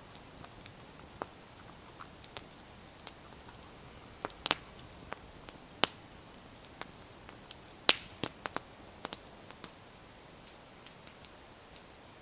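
Wood campfire crackling: irregular sharp pops and snaps, with a handful of loud ones around the middle, over a faint steady hiss.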